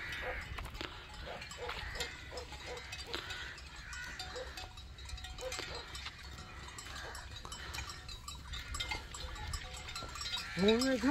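Bells on a passing herd of cattle clanking irregularly as the animals walk, a few clanks a second. Near the end a wavering voice-like call comes in.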